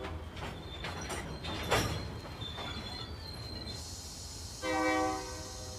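Freight train rolling close by: a low rumble with wheel clanks, a sharp bang about two seconds in, and a brief thin high squeal. One short locomotive horn blast sounds near the end.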